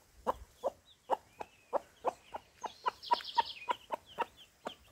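Mother hen clucking in a steady run of short clucks, about three a second, while her newly hatched chicks peep faintly and high above, with a brief flurry of peeps about three seconds in.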